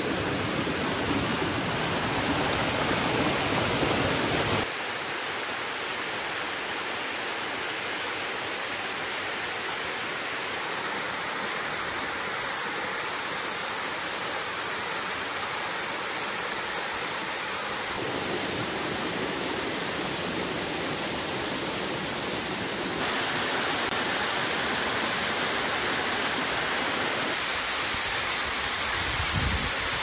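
Water from small waterfalls and cascades pouring over rock into a creek, a steady rushing. Its loudness and tone shift suddenly four times as one fall gives way to another.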